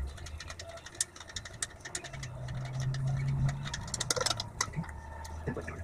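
Scattered sharp metal clicks and clinks of hand tools being worked on an engine's cylinder head. A low hum runs underneath and swells for a couple of seconds in the middle.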